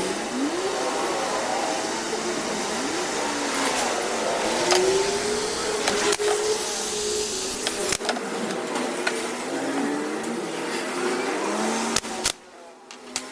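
Electric power tool motor running with its pitch rising and falling as it is worked, with a few sharp clicks; it cuts off abruptly near the end.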